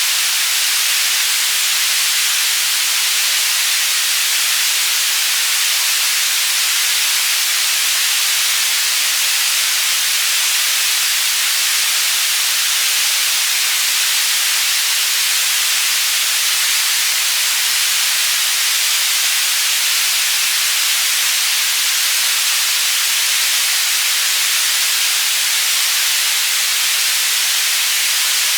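Steady synthetic white noise for tinnitus masking: an even, high-pitched hiss with almost no low end, unchanging throughout.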